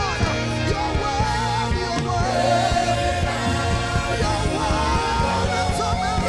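Live gospel worship music: a band with bass and drums keeping a steady beat under a voice holding long, wavering notes.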